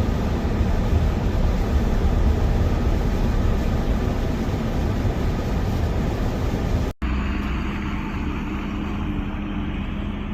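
Steady low rumble of a vehicle on the road, engine and tyre noise mixed with wind. About seven seconds in it cuts out for an instant and comes back a little quieter, now with a steady hum.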